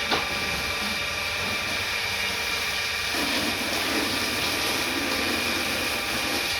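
Steady machinery hum with a constant high whine and several fainter steady tones. There is a short click just after the start, and a rougher lower rumble joins about halfway through.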